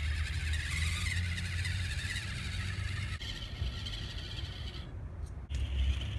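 The tiny brushed electric motor and gears of a Proline Ambush 1/25-scale RC rock crawler whirring as it climbs a wooden plank, over a low rumble. The sound drops out briefly about five seconds in.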